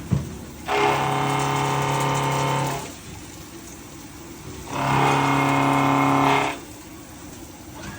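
Milling machine cutting the flight of a steel press screw. The cutter and spindle run with a steady pitched whine in two loud passes of about two seconds each, one starting just under a second in and one about five seconds in, and run more quietly between them. A short knock comes right at the start.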